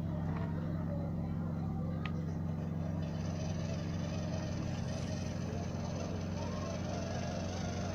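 Electric motor and gear drive of a homemade RC model farm vehicle running with a steady low hum.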